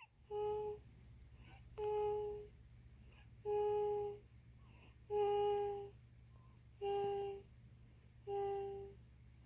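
A small child humming short, contented 'mm' sounds while eating: six brief hums on one steady pitch, about one and a half seconds apart.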